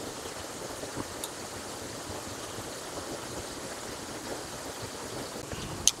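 Steady rushing of a waterfall, with a sharp click near the end.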